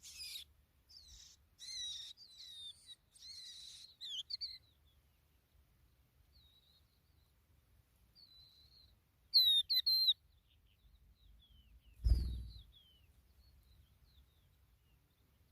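Skylark calls: clusters of short, high chirps and trills, with fainter scattered chirps between them and a loud cluster a little past the middle. A dull thump about three-quarters of the way in.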